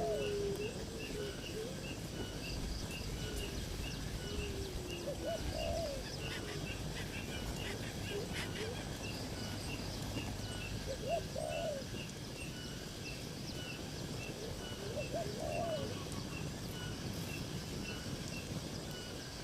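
Birds calling: a low, curving call repeats about every five seconds over a steady series of short high chirps, against a constant background hiss.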